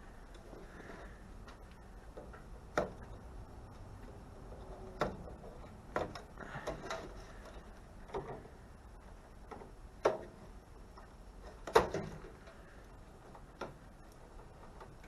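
Scattered clicks and knocks of hand tools and metal parts while a microwave oven is being taken apart, about one every one to two seconds, a few with a short metallic ring.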